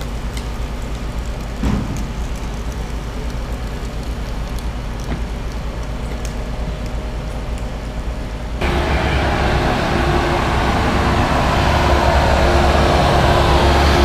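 Low, steady rumble of machinery and street noise. Then, at a sudden cut about two-thirds of the way in, a louder engine runs steadily close by with a constant hum: a Bobcat S300 skid-steer loader's diesel engine.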